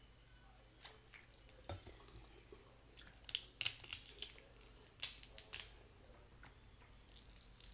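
Snow crab leg shells cracking and snapping as they are broken open by hand: a series of sharp cracks, most of them bunched between about three and four seconds in, with a couple more about five seconds in.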